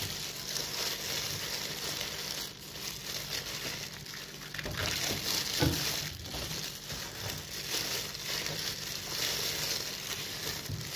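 Gloved hands rubbing a wet, gritty marinade of ground aromatics and salt into a whole raw chicken: steady crinkling of plastic food-prep gloves with wet scraping on the skin and the banana leaf beneath. The bird is turned over about halfway through.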